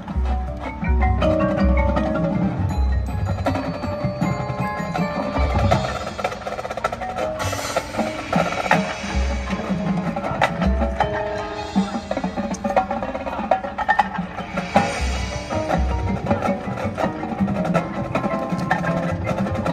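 Marching band playing, with mallet percussion such as marimba and glockenspiel to the fore, held chords, and deep low hits scattered through.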